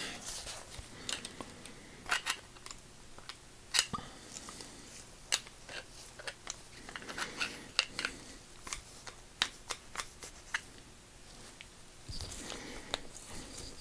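Irregular light metal clicks and scrapes as a screwdriver is worked against a Phillips bit socket stuck on a 3/8-inch ratchet's drive, trying to pry it off. The socket is stuck fast. A soft rustle of handling comes near the end.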